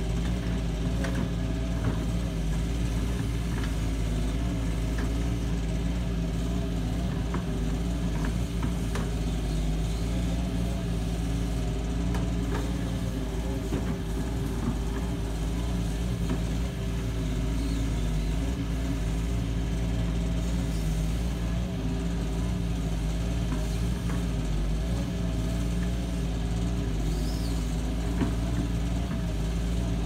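Doosan DX140W wheeled excavator's diesel engine running steadily as it digs, with a few faint knocks.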